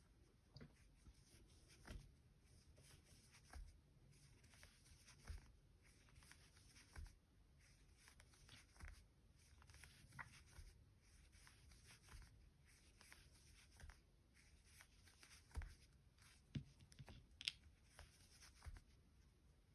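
Near silence, with faint, irregular scrapes and light ticks of a metal crochet hook pulling soft chenille yarn through stitches. A few slightly louder ticks come near the end.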